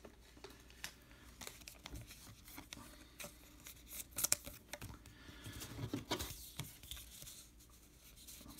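Baseball trading cards being handled and flipped through: scattered soft clicks and light paper rustling, with a brief louder crinkle about four seconds in and again around six seconds.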